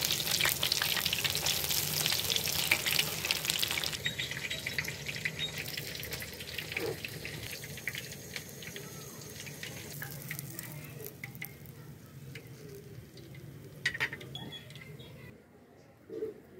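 Breaded chicken nuggets deep-frying in hot oil, a dense crackling sizzle for the first four seconds or so. It then drops to a much quieter background with a few light clicks, one sharper click near the end.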